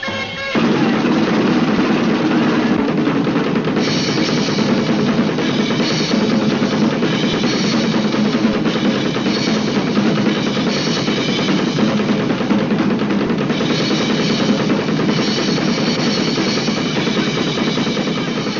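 Drum kit on a film soundtrack playing a fast, continuous drum roll, starting about half a second in, with brighter splashes coming and going every second or two.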